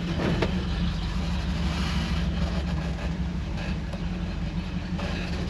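A 1964 Rambler wagon heard from inside its cabin while driving: a steady low engine drone with a haze of road noise.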